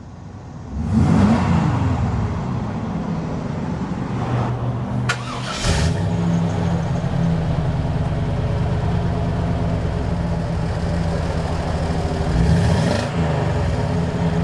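Chevrolet 454 (7.4 L) big-block V8 of a 1998 Silverado 3500 starting about a second in with a brief rise in revs, then settling into a steady idle, with a short swell in revs near the end.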